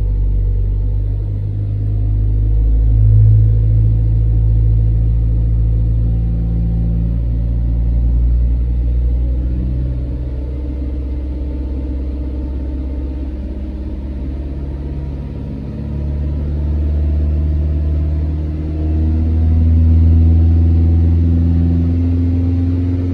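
Toyota bB engine running with a steady low rumble, its pitch gliding up near the end as it revs or accelerates. A new engine mount has just been fitted to replace a worn, sagging one that had been shaking the interior trim.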